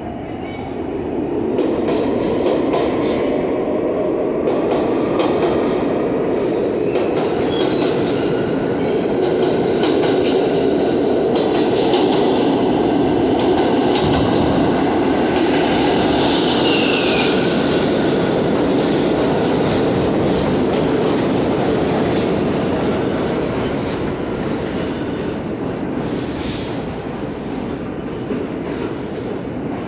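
R46 subway train pulling out of the station alongside the platform: a loud steady rumble of wheels on rail with rapid clacking over the rail joints and a brief wheel squeal about halfway through. The sound fades over the last few seconds as the train leaves.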